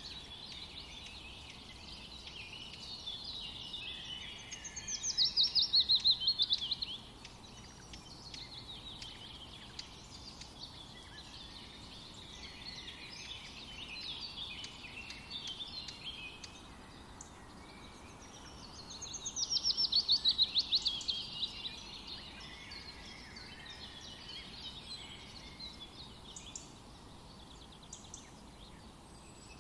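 Birds chirping and singing throughout. Twice, about five seconds in and again about twenty seconds in, a bird gives a loud, fast trill that falls in pitch.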